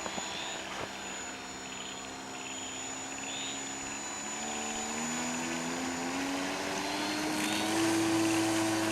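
Radio-controlled Cessna 182 scale model floatplane's motor and propeller droning in flight; from about halfway in, its pitch climbs and it gets louder.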